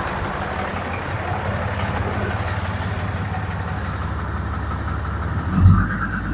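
An engine running at a steady idle, with a low thump about five and a half seconds in.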